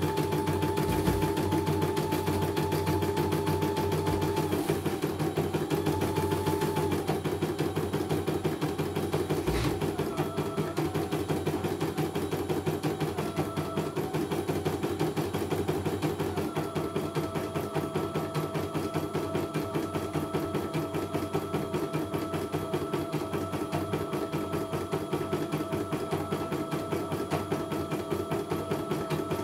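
CNY computerized embroidery machine stitching a design: a rapid, steady needle clatter with a whining motor tone that shifts in pitch several times as the hoop moves.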